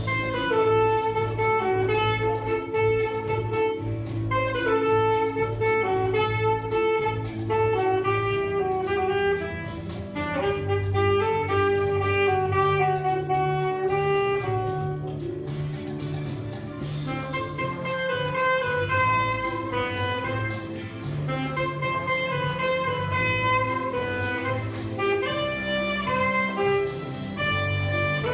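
Instrumental music: a sustained melody line moving in held notes over a steady bass line, with a regular beat.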